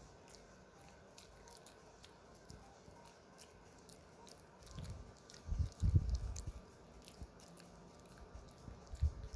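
Small dog gnawing on a thin chew stick: faint clicking and crunching of teeth on the chew, with a few louder low bumps around the middle and near the end.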